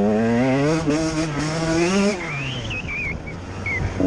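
Enduro motorcycle engine pulling under throttle, its pitch climbing slightly. About halfway through the throttle shuts off and a high wavering squeal is heard. The engine picks up again right at the end.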